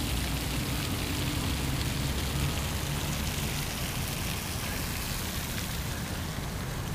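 Fountain jets splashing into a shallow pool: a steady hiss that thins out after about four seconds, over a low steady rumble.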